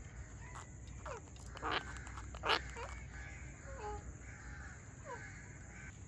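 Indian ringneck parakeet giving a series of about six short calls, several of them sliding down in pitch, the loudest about two and a half seconds in.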